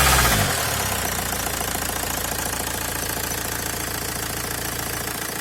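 Opel Y22DT 2.2 four-cylinder turbodiesel engine dropping from raised revs back to idle about half a second in, then idling with an even, rhythmic clatter. This is the extraneous noise the owner is trying to track down.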